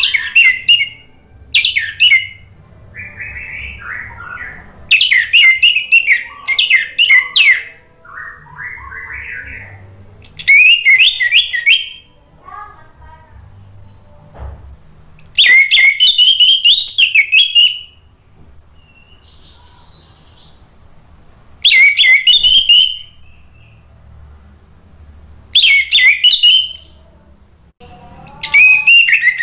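Orange-headed thrush (anis merah) in full song: about eight loud phrases of rapid, warbling whistled notes, each a second or two long with short pauses between, and softer, lower twittering in some of the gaps.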